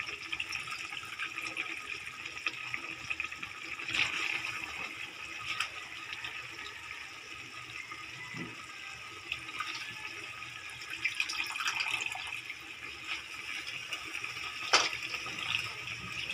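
Sardine-and-pechay sauce simmering in a wok, a steady bubbling, crackling sizzle. A few sharp clicks cut through it, the loudest near the end.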